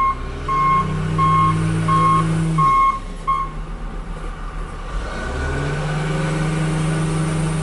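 Backup alarm on heavy equipment beeping at one steady pitch, about six beeps roughly 0.7 s apart, over a diesel engine running. The beeping stops a little after three seconds in, and the engine rises again from about halfway through.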